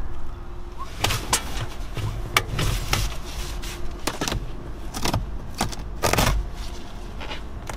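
Metal hog rings being pried and snapped out of a truck seat's cover with a hand tool: a run of sharp, uneven clicks and scrapes, about eight of them, the last one longer, over a faint steady hum.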